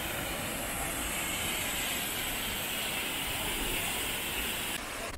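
Tall waterfall: a steady, even rush of falling water.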